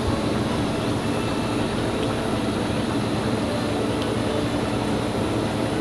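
Propane cooker burner running steadily, an even rushing noise under the pot.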